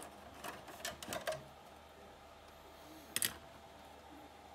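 A few faint clicks and light metal handling noises as the perforated sheet-metal top cover of a Soviet C1-94 oscilloscope is freed and lifted off, with one sharper click a little over three seconds in.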